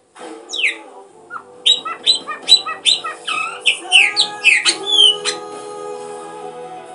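A bird's rapid chirps and falling whistles, about five seconds of calls over steady background music.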